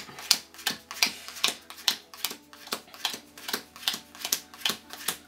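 Playing cards dealt one at a time onto piles on a tabletop, each card landing with a light click, steadily about two to three a second.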